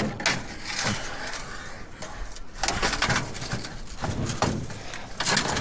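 Knocks, clatter and scraping of scrap metal being handled, in a run of uneven irregular hits.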